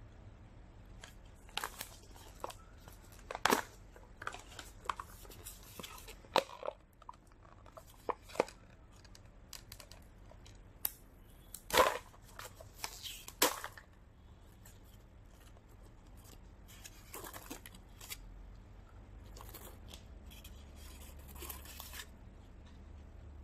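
Hands opening a cardboard popcorn tube: a string of sharp clicks, snaps and tearing as the lid and rim seal are pulled open, the loudest about twelve seconds in. Softer rustling of the paper liner inside follows.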